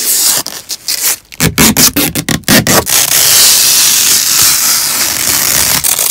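Protective tape and plastic film being peeled off a new car's interior trim: a run of short rips and rubs, then a long steady tearing noise from about three seconds in.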